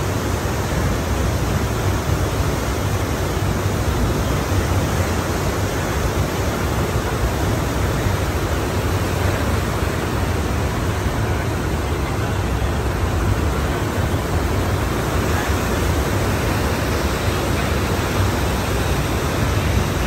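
Ocean surf as a steady, even rushing, with no distinct waves breaking.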